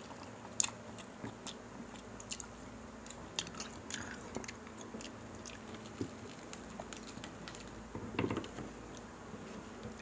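Close-miked eating sounds from crispy pata (deep-fried pork knuckle): chewing and biting with many scattered sharp clicks and crunches, and a louder crunch about eight seconds in.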